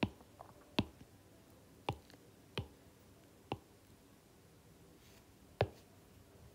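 Stylus tapping on a tablet's glass screen while working the drawing app's menus: six sharp, irregularly spaced clicks.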